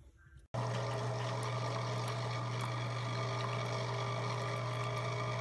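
CHULUX single-serve coffee maker brewing: its water pump runs with a steady buzzing hum over the sound of water moving through the machine, cutting in abruptly about half a second in.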